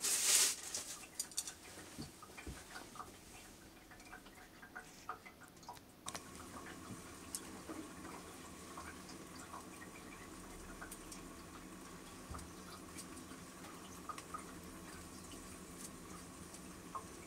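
Light kitchen clatter: chopsticks clicking against an enamelled pot and its contents while food is arranged in it, scattered small ticks throughout. From about six seconds in, a soft steady hiss runs under the clicks.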